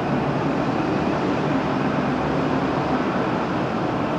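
Steady rumbling noise on board a cruise ship, with a faint low hum under it and no distinct events.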